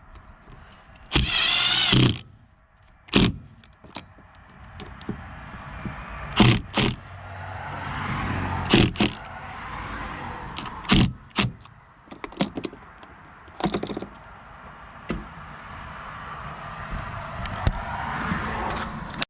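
Power drill driving a mounting screw, a short run of its motor with a wavering whine about a second in, followed by scattered sharp knocks and clicks.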